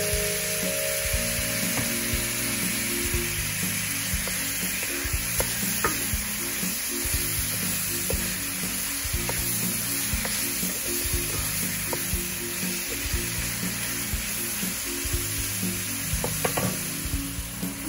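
Shrimp and diced peppers sizzling in a hot metal wok, with a wooden spoon stirring and knocking against the pan now and then. Background music plays underneath.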